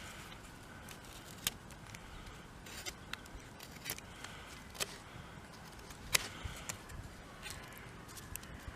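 Knife blade whittling a piece of wood: about ten short scraping cuts at irregular intervals, the sharpest about six seconds in.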